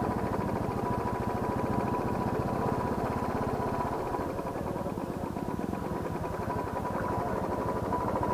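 Motorcycle engine running steadily at low speed, its firing pulses close and even.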